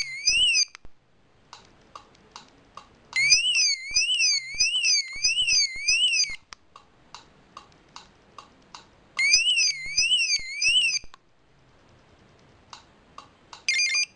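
Tomahawk 7.1 car alarm set off by its hood sensor: a warbling alarm tone sweeping up and down about twice a second, sounding in three bursts. Between the bursts comes rapid relay clicking as the alarm blinks the lights, and a short beep comes near the end.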